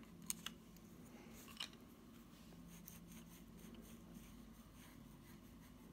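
Near silence: a wet paintbrush working faintly over a wooden board, with a few light ticks in the first two seconds, over a faint steady hum.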